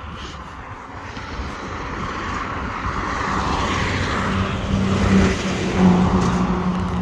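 A motor vehicle approaching and passing close by, tyre noise growing louder, with a steady engine hum coming in about three seconds in and peaking near the end.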